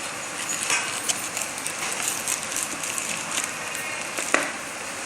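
A small box of electronic components being opened and handled: crackling, rustling packaging with a run of small clicks, and one sharper click about four seconds in.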